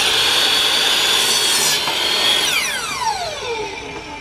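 Electric miter saw crosscutting a wooden 2x4, running with a steady high whine through the cut. About two and a half seconds in the motor is released and winds down with a falling whine.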